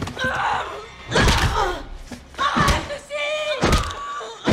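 Film sound of a violent struggle: a woman screaming and crying out, with a long high cry near the end, over three heavy thuds and slams.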